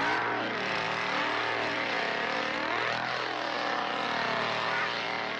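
A steady engine-like mechanical drone whose pitch sweeps up and down in slow swells.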